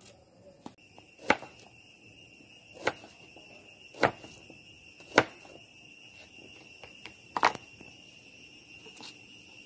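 Kitchen knife slicing bilimbi (orkaapuli) fruits on a cutting board: five sharp knocks of the blade striking the board, spaced irregularly a second or so apart. A steady high-pitched tone runs behind from about half a second in.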